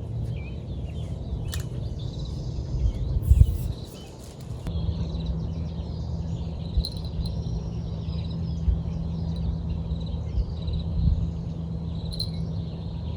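Outdoor ambience: uneven low rumble of wind on the microphone, with many short, high chirps throughout. A single louder bump about three and a half seconds in, and a faint steady low hum sets in after about five seconds.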